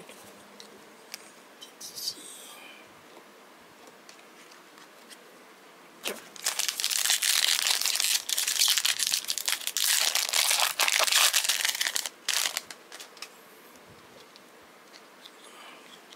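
Plastic wrapper of a trading-card pack crinkling and tearing as it is opened. The dense crackling starts about six seconds in and stops suddenly about six seconds later, with a few faint ticks of handling before it.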